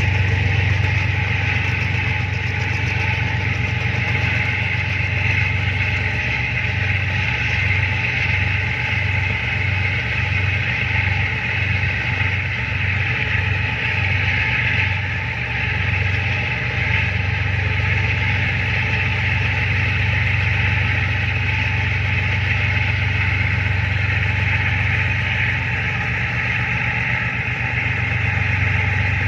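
Tugboat's diesel engine running steadily with a constant low hum.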